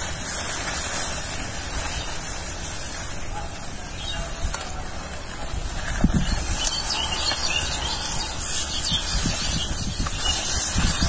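Steady wind rumble and hiss on the microphone, with the leaves of a banana-leaf disguise rustling in irregular bursts from about six seconds in.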